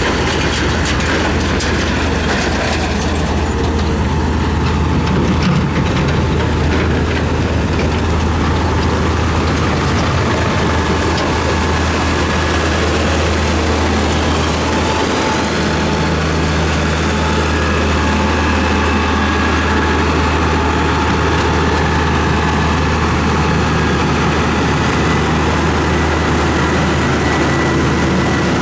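Heavy road-building machine's diesel engine running steadily at an even pitch for the whole stretch, a low drone with a faint whine above it.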